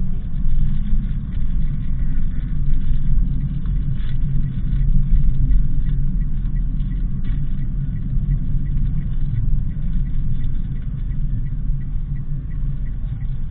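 Low, steady road and engine rumble of a Daihatsu Sigra on the move, with faint, evenly spaced ticking in the second half.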